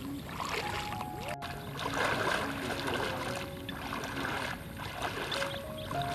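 Water swishing and sloshing in surges as legs wade through thigh-deep water, over background music of slow held notes.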